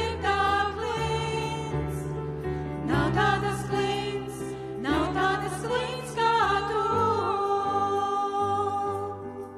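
Live worship song: women's voices singing into microphones over sustained electric keyboard chords, ending on a long held note in the second half.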